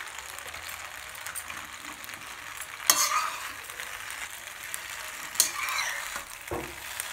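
Masala macaroni sizzling gently in a hot kadhai while a metal spatula stirs grated paneer into it, scraping sharply against the pan about three seconds in and again about five seconds in.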